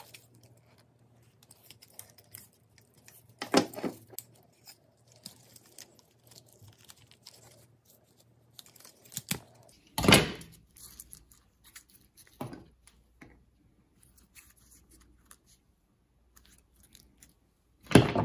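Handling noise from the parts of a torn-down Stanley FatMax rechargeable spotlight: its battery pack, circuit board and wires are pulled about and moved among the plastic housing pieces, giving scattered light clicks and rustles. Louder handling noises come about three and a half seconds in, at about ten seconds (the loudest), and near the end.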